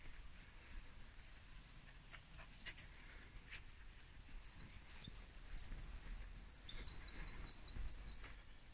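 A songbird singing: from about halfway through, two quick runs of high, rapidly repeated notes, several a second.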